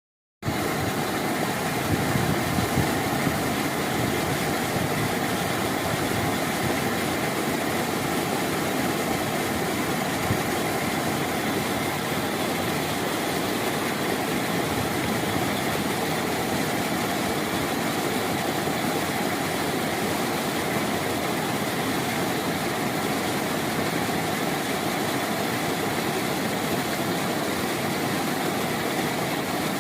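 Steady roar of rushing water, like floodwater or a waterfall pouring, starting abruptly and holding level.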